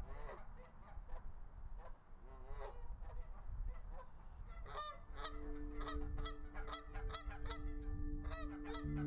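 Geese honking, faint and scattered at first, then a quick run of repeated honks from about halfway through.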